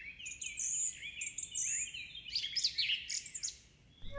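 Songbird chirping and singing: a run of quick, whistled notes and short trills that stops shortly before the end.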